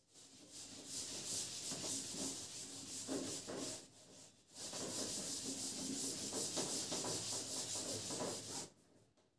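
Scratchy rubbing against a teaching board, in two long runs with a short break about four seconds in.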